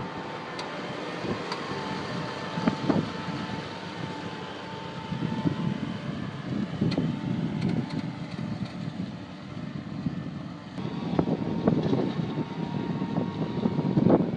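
Tractor engine running under load as it pulls a gravel mole drain plough through grassland, with a faint steady high whine. Wind gusts buffet the microphone.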